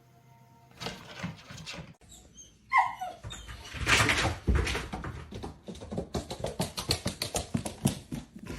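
A dog whimpering: a short rising whine about three seconds in, followed by a rapid run of quick noisy sounds.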